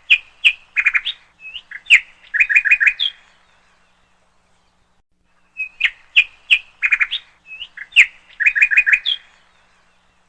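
Bird chirps and short trills in a phrase of about three seconds, played twice with a pause of about two seconds between. The two phrases are identical, as from a looped recording.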